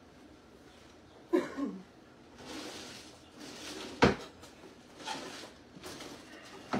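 Kitchen handling noises: a few short knocks and clatters over a quiet room, the sharpest about four seconds in and another near the end, with some rustling in between.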